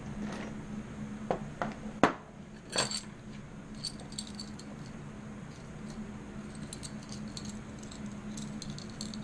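Small metal hardware handled by hand: bolts and a metal bracket clinking and rattling, with a few sharp knocks in the first three seconds, the loudest about two seconds in, then lighter scattered clinks.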